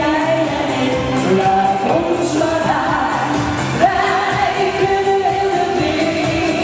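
Dutch-language pop song: a singer holding long, wavering notes over an instrumental backing.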